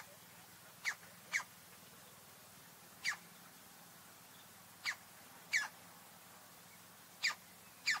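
Young green woodpecker at its nest hole giving short, sharp calls, seven in all at irregular intervals, some in quick pairs, each a quick falling sweep.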